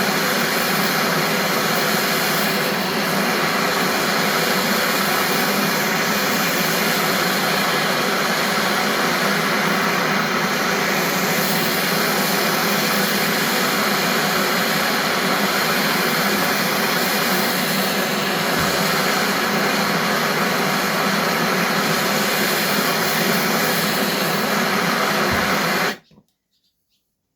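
Heating tool blowing with a loud, steady rushing hiss while the seized throttle rod is heated to free it, cutting off abruptly near the end.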